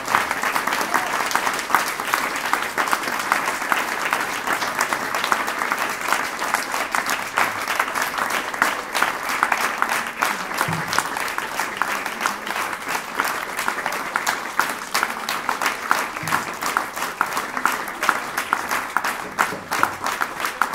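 Audience applauding steadily, with many separate hand claps.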